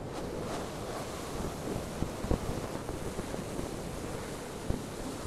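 Wind buffeting the microphone, a steady rumbling hiss, with a couple of brief knocks about two and four and a half seconds in.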